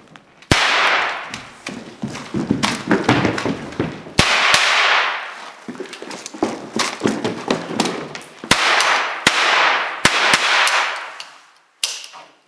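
A cheap eight-shot toy cap-gun revolver styled on a Colt Detective Special fires paper caps. About eight sharp cracks come at uneven intervals, the louder ones trailing off in a ringing hiss, with smaller knocks and rattles in between.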